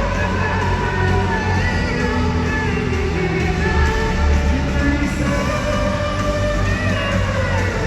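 Live band music with a singer's voice over loud drums and bass, pop-rock in style.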